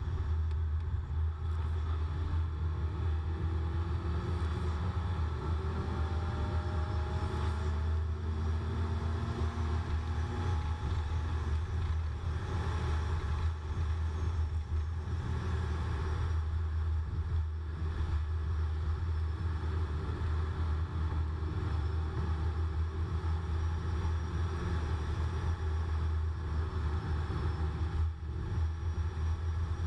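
Steady low road and engine rumble heard from inside a car cabin while driving on the highway, with faint rising tones in the first part as the vehicle speeds up.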